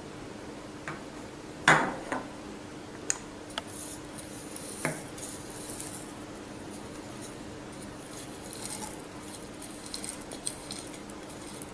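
Sharp clinks and knocks of utensils against a glass jar, the loudest about two seconds in, then a cluster of light high ticks near the end, over a steady low hum.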